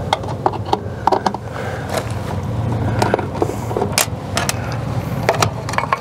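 Scattered light metal clicks and clinks as screws and the access cover over the heating element of a Suburban RV water heater are worked loose and handled, over a steady low hum.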